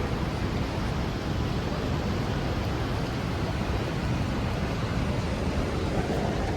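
Steady city traffic in the rain: a continuous hiss of rain and wet road over a low rumble of vehicles, with no single event standing out.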